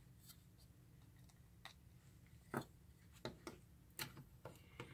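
Faint, scattered small clicks and taps, about eight, the loudest about two and a half seconds in: the legs of a small tactile push-button switch being pressed into a printed circuit board, and the board being handled and turned over.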